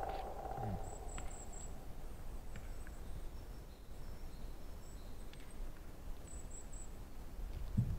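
Quiet outdoor background: a steady low rumble with a few faint high chirps and a couple of soft low thuds.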